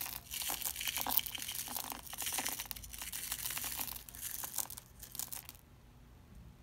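A small plastic bag of amazonite chips crinkling and rustling as the chips are shaken out of it, stopping about five and a half seconds in.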